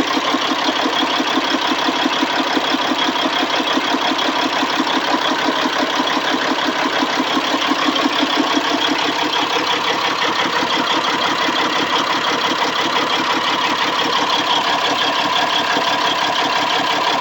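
C15 engine idling roughly, with a steady, even pulsing beat.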